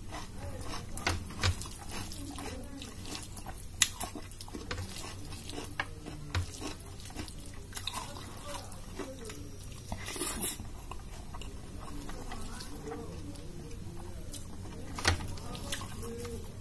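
Close-up eating sounds: wet chewing and sharp mouth clicks, with fingers squishing rice mixed with dal and curry on a plate. A short louder burst of noise comes about ten seconds in.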